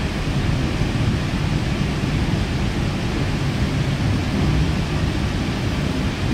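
Steady low rumble and rush of a K-set electric passenger train in motion, heard from inside the car: wheels running on the rails.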